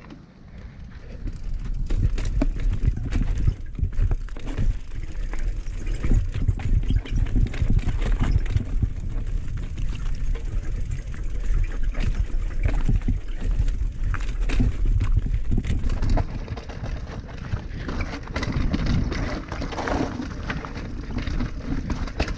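Specialized Stumpjumper Evo mountain bike riding down a rocky dirt trail: tyres crunch over dirt and loose rock, and the bike rattles and knocks over a steady low rumble. It gets louder after the first second or two.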